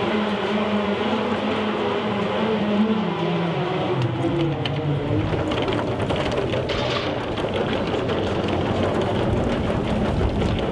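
Engines of a moored passenger ferry running with a steady hum that drifts slightly in pitch. Wind buffets the microphone from about halfway through.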